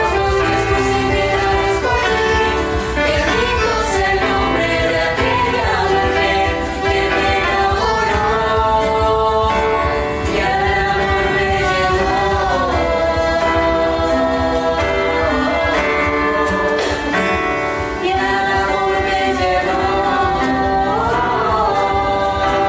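A hymn sung by a group of voices over instrumental accompaniment.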